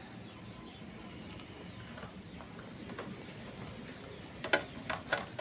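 Light clicks and ticks of tools and cable being handled: a few scattered ones, then a quick cluster about four and a half seconds in, over faint room noise.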